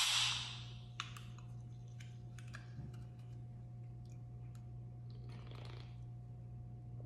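Aluminium can of Poppi orange prebiotic soda cracked open: a sharp pop and then a fizzing hiss of escaping carbonation that fades over about a second. Faint clicks follow, and a sip from the can a little after five seconds in.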